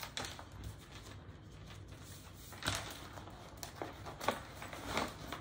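A handful of soft rustles and light knocks from cross-stitch chart packets and kit bags being handled on a table, over a faint low hum.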